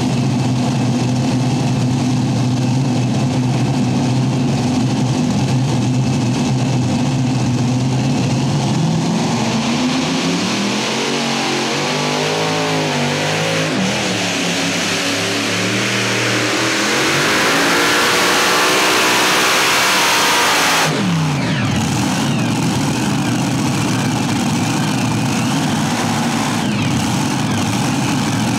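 Multi-engine supercharged unlimited modified pulling tractor: its engines run steadily at first, then come up on throttle about a third of the way in. The pitch climbs and wavers under load during the pull, grows louder near full power, then drops sharply about three-quarters through and settles into a lower steady run.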